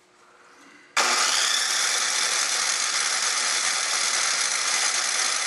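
Flooded Tecumseh engine on a Toro snowblower being cranked over with the throttle wide open, not yet catching. The steady cranking noise starts abruptly about a second in.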